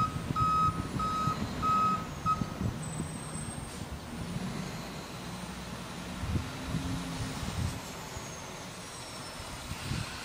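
Garbage truck's backup alarm beeping about twice a second for the first two seconds, then stopping. The truck's engine runs on underneath and swells briefly past the middle.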